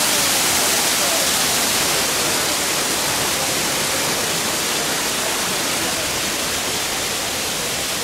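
Waterfall cascading over rock ledges: a steady, loud rushing hiss of falling water, with faint voices in the background now and then.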